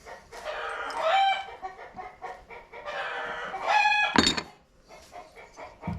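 Chickens calling: three drawn-out crowing or cackling calls, each about a second long, with a single sharp knock about four seconds in.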